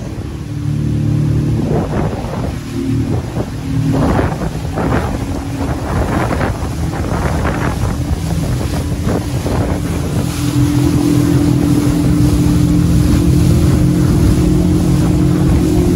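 Motorboat engine running under way, its note getting louder about ten seconds in, with water splashing off the hull and wind buffeting the microphone.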